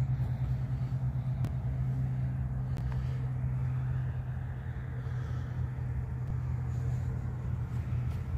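A motor vehicle's engine idling with a steady low hum. A couple of faint clicks sound in the first few seconds.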